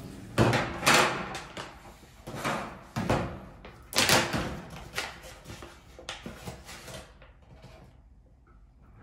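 Handling noises from a plastic shaker bottle and a plastic protein pouch: several knocks and clatters, then rustling as the pouch is opened. It grows quiet in the last couple of seconds.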